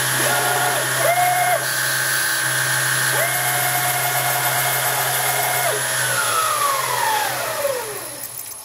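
Home-made CNC lathe cutting an aluminium ball. The spindle motor runs with a steady whine, and the servo-driven axes whine at a held pitch during two tool moves: one from just after the start to about a second and a half, one from about three to six seconds in. Near the end the spindle winds down, its whine falling in pitch and fading.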